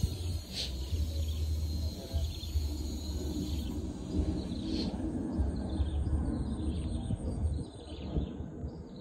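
A small bird calling in quick, repeated chirps that fall in pitch, about two a second, starting about halfway through. Underneath is a louder, uneven low rumble.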